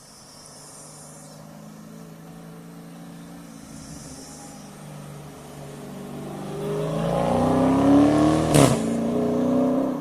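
Chrysler 300 SRT's 392 Hemi V8 accelerating toward and past, its engine note rising and growing loud over the last few seconds, with one sharp exhaust crack as it goes by. The sound cuts off suddenly near the end.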